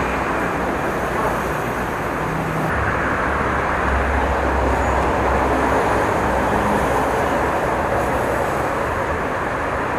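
Steady road noise from a motorcycle ride: rushing wind over the mic mixed with the motorcycle's engine and the traffic around it.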